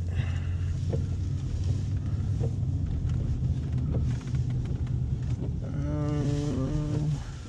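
Steady low rumble of a car's engine and road noise inside the cabin of a moving car, with a brief pitched drone about six seconds in.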